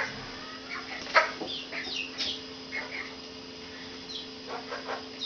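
Month-old chicks peeping: a scattering of short, high calls that slide downward. A single knock comes about a second in, and a steady low hum runs underneath.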